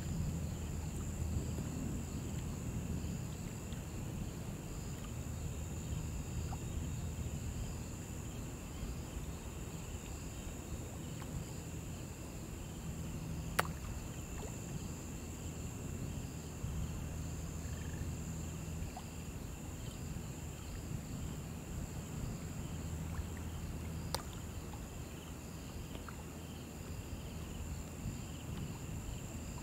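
Shallow river water flowing and lapping as a steady low rush, with a continuous high-pitched insect chorus and a repeated pulsing chirp over it. Two sharp clicks sound about 14 and 24 seconds in.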